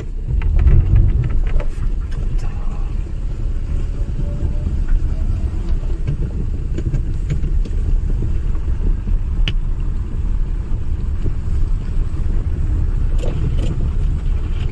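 Car driving over a snow-covered road, heard from inside the cabin: a steady low rumble of engine and tyres, with a few light knocks.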